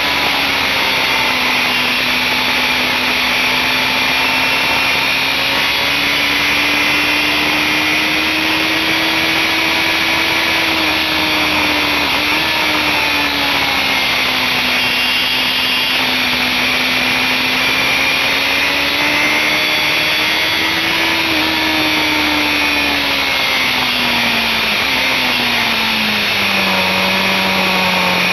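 BMW S1000RR inline-four engine running at high revs, heard from on board over heavy wind rush. The revs rise and fall slightly with the throttle, then drop about four seconds before the end as the bike goes into a corner.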